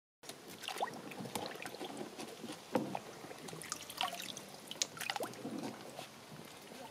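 Shallow water in a plastic paddling pool splashing and sloshing irregularly as Shetland sheepdog puppies paw and snap at it, with small drips as a toy is lifted out of the water.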